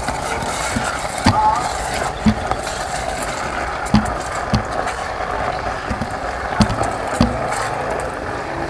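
Silicone spatula stirring shrimp, onions and tomato sauce in an electric pot, knocking against the pot about seven times at irregular intervals, over a steady sizzle of the food cooking.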